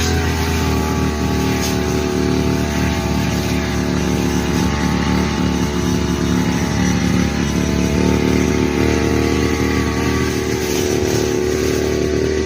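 Petrol brush cutter (grass trimmer) engine running steadily.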